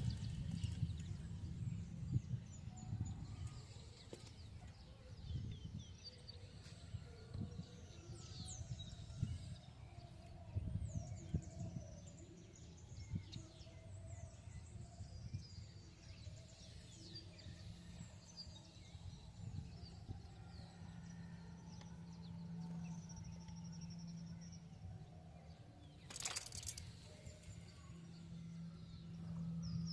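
Many short, high bird chirps, falling in pitch, over a low outdoor rumble. A steady low hum joins later, and there is a single sharp knock near the end.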